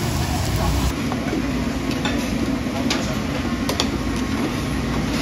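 Cooking noise at a food stall's griddle: a steady sizzling hiss with a few sharp clicks of metal utensils.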